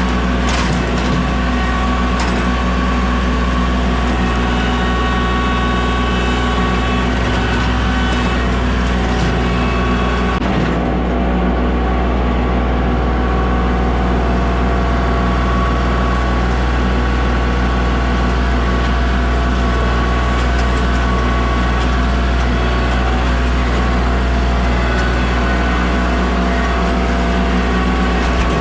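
A large engine running steadily at a constant speed, with a deep, even drone.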